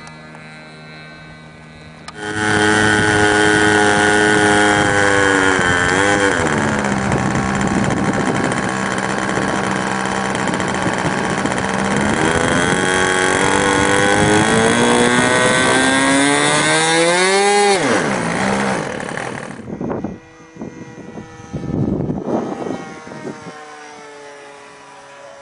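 A fast radio-control model aeroplane's engine running flat out with a high, steady buzz. Its pitch swoops up and then down twice as the model passes close by, and after the second pass it drops away to a fainter drone.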